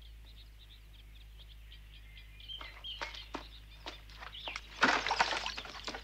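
Birds chirping faintly in a cartoon soundtrack, with a few sharp knocks, then a loud rushing splash of water from a wooden bucket for about the last second.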